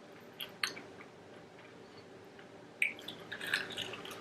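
Faint, scattered crunching and chewing of fried, Cheeto-coated snack food: a couple of small crackles about half a second in, then a cluster of crunches near the end.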